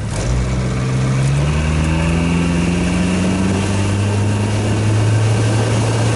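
Boat motor throttling up, its pitch rising over the first two seconds or so and then holding steady at speed.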